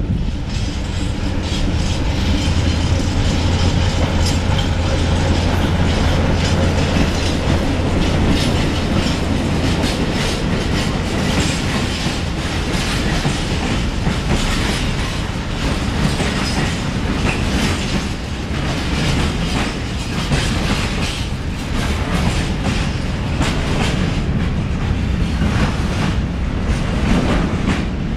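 A diesel locomotive's engine drones past in the first ten seconds or so. A long freight train of box wagons then rolls slowly by, its wheels clicking steadily over the rail joints.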